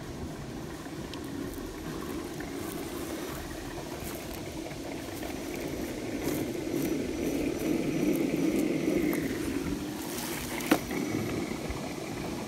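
RC scale crawler's electric motor and gear drive running at low crawling speed as the truck climbs over rocks, swelling louder in the middle, with one sharp knock near the end.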